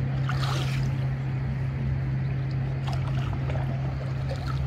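A steady low hum, with water lapping and light splashes around a river raft.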